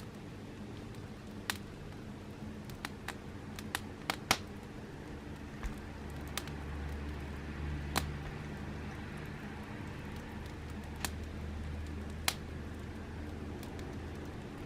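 Scattered single sharp clicks, about a dozen at irregular gaps, over a low steady hum that swells about six seconds in.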